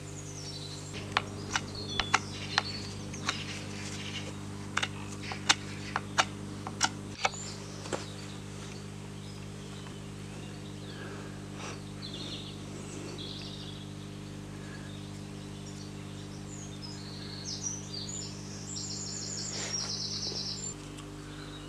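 Irregular sharp knocks and cuts of a blade into green wood, from tapering the ends of a bucksaw crosspiece to points, spread over the first eight seconds or so. Then small birds chirping over a steady low hum.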